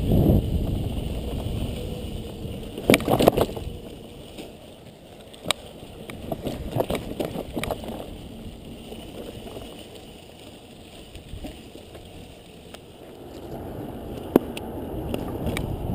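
Mountain bike rolling over a dirt singletrack trail: low rumbling tyre noise with sharp rattles and clicks of the bike over bumps, a cluster about three seconds in and single ones later. It is louder at the start and end and quieter in the middle.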